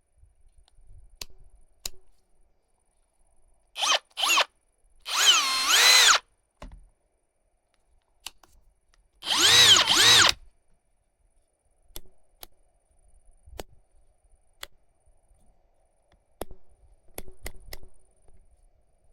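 Bosch UniversalImpact 18V-60 cordless combi drill motor running in short bursts: two quick blips, then two runs of about a second each, its pitch rising and falling. Light clicks and knocks sound between the runs.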